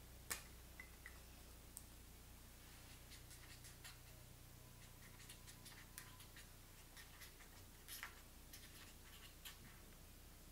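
Faint scratching of a pen writing on a small paper note on a table, in short scattered strokes. A single sharp tap comes about a third of a second in, the loudest sound.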